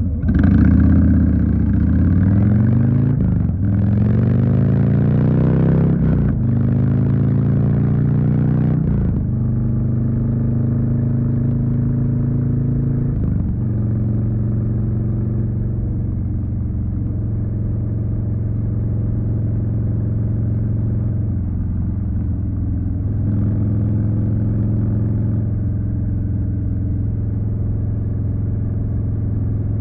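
2020 Harley-Davidson Street Bob's Milwaukee-Eight 107 V-twin pulling hard through the gears, its pitch rising and dropping back with three upshifts in the first nine seconds. After that it runs at a steady cruising speed with only small changes in throttle.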